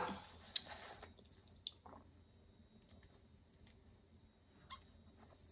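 Near quiet, with a few faint short clicks and mouth sounds of someone sipping a drink through a straw.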